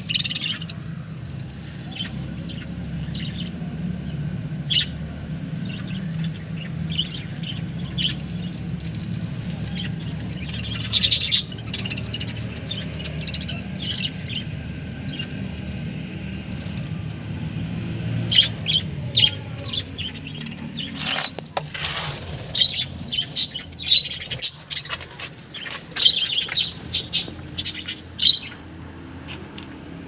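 Budgerigars chirping: short, high chirps scattered throughout, coming thicker and louder in the second half, over a low steady hum that fades about two-thirds of the way through.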